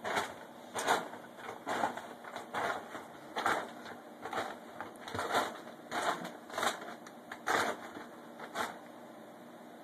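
A dog nosing and pushing at a bag of dry dog food, the bag rustling and crinkling in repeated short bursts, about one a second or faster, stopping near the end. The owner thinks the dog is trying to bury the food.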